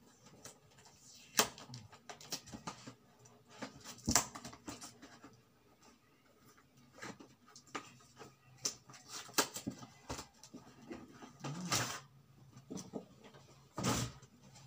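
Gift wrapping and packaging (paper and plastic) rustling and crinkling as presents are handled and unwrapped by hand, in irregular bursts with a few louder crinkles.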